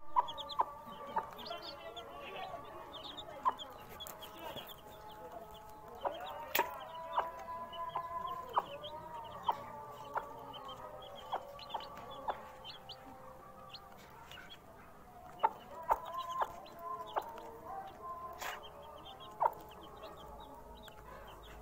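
Chickens: baby chicks peeping continuously in short high chirps over held clucking calls from the adult birds, with sharp clicks now and then.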